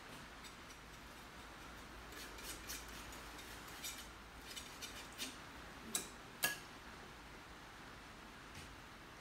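Faint scratching and light taps of a painting tool working paint on a canvas and a paper palette, with two sharper clicks around six seconds in, over a faint low hum.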